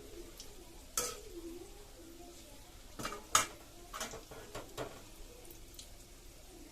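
A cooking utensil knocking and scraping against a kadai of palm-fruit fritters frying in oil, about six clinks with the loudest a little past halfway, over a faint steady sizzle.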